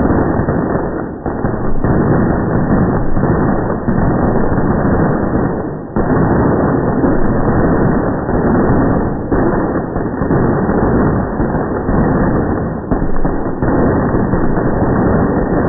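A string of firecrackers going off in a loud, dense, unbroken barrage, with brief lulls about a second in and near the middle.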